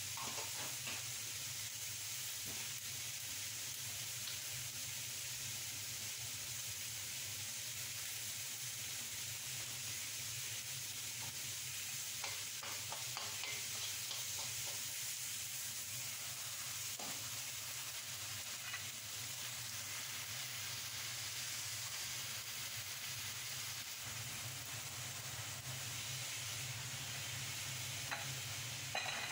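Pumpkin and long beans sizzling steadily as they are stir-fried in a wok, with a wooden spatula now and then scraping and tossing them against the pan.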